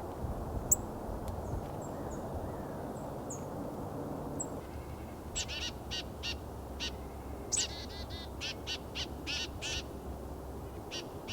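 Wild birds calling: a few thin, high chirps, then from about five seconds in a quick series of short, harsh call notes, over a steady low background hiss.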